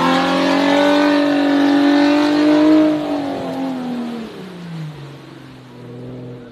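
Jeep Wrangler engine revving hard as its big tires spin through wet sand. About three seconds in, the pitch falls and the sound gets quieter as the Jeep eases off and moves away, ending in a lower hum.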